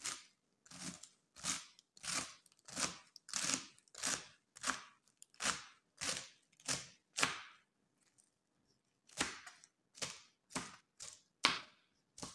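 Knife chopping crisp lettuce on a cutting board: a short crunchy cut about every half second, a brief pause about eight seconds in, then quicker cuts.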